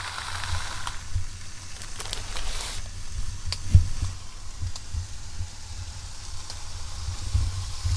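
Hot dogs sizzling faintly on foil over a portable propane grill, with small pops now and then, under a low, uneven rumble.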